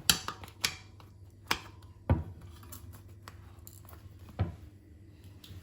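About five separate sharp clicks and knocks, spaced irregularly, as a new bicycle tyre and inner tube are worked onto the wheel rim by hand.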